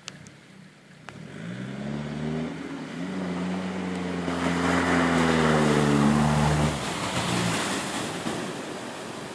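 Nissan Patrol GR 4x4's engine revving up steadily under load as it drives into a river ford, its note falling away about seven seconds in. Water splashing and rushing around the vehicle swells from the middle on as it ploughs through.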